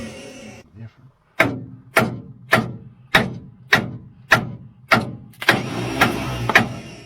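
A series of sharp, evenly spaced hits, roughly one every 0.6 s, each ringing out briefly, starting about a second and a half in.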